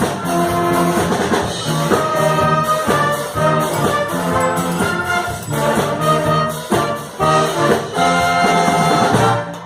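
Live band with a brass section of trumpets and trombones playing an upbeat number in short, punchy chord hits. The band holds a final chord near the end and then cuts off.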